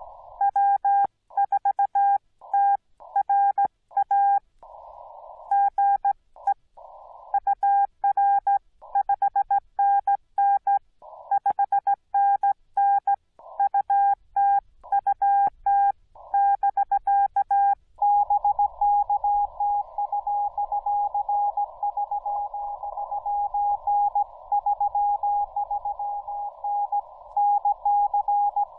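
Morse code (CW) from a Yaesu FT-891 transceiver: for about the first 18 seconds a loud keyed tone near 800 Hz with clean silent gaps, the rig's sidetone as the operator sends. Then the receiver's hiss through the narrow CW filter takes over, with another station's weaker Morse code coming through it, fading up and down.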